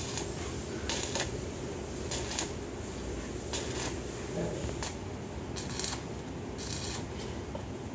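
Short stitches of welding on thin sheet steel: a hissing crackle in bursts of a fraction of a second, about once every second or so, laid on slowly so the thin metal is not burned through while the seam is closed.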